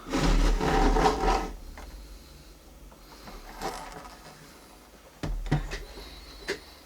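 Plastic casing of an espresso machine being handled as its bottom cover comes off: a rattling scrape for about the first second and a half, then a few scattered clicks and a short clatter near the end.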